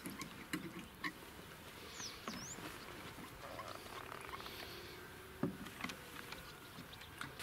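Quiet lakeside ambience with scattered small clicks and rustles of gear being handled, a couple of short high chirps about two seconds in, and one sharper knock about five and a half seconds in.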